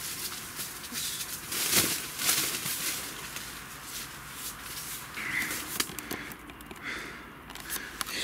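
Tent fabric rustling and crinkling as the door panel is handled, with scattered clicks and knocks of a person and dogs moving about inside the tent.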